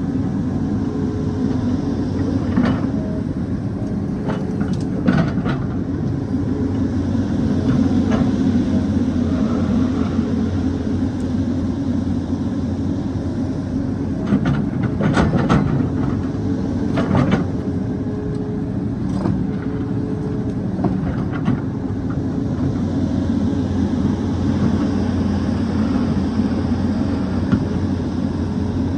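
Excavator's diesel engine running steadily under load while the bucket digs rock, with sharp knocks and scrapes of steel on stone several times, most in a cluster about halfway through.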